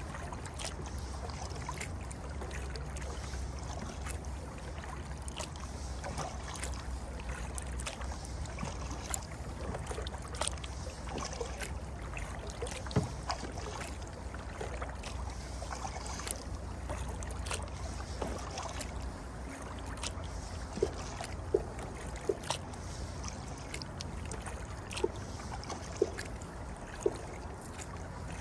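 Kayak being paddled: water swishing and dripping off the paddle over a steady low rumble, with many sharp clicks and knocks, several of them louder in the second half.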